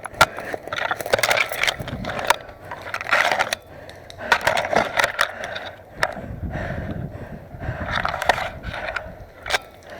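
Footsteps crunching over dry ground, with gear rustling, as a player moves on foot. Several sharp clicks sound at irregular moments.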